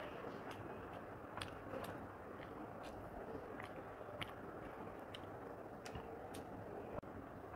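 Close-miked chewing of a mouthful of rice and cabbage, with soft scattered clicks through it.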